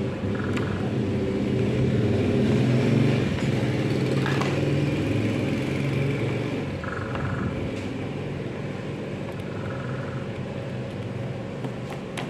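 Low steady mechanical rumble, loudest a few seconds in and then easing off, with faint short chirps now and then.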